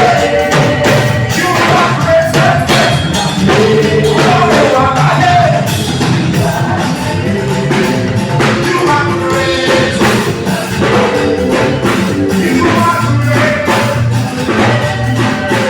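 Live band playing music with a steady drum beat and a singing voice.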